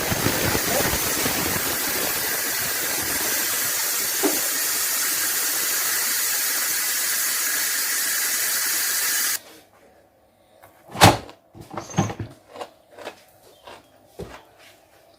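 Electric pressure cooker venting steam through its release valve: a loud, steady hiss that cuts off suddenly about nine seconds in, once the pressure is let out after cooking. A few knocks and clicks follow, with the lid being handled.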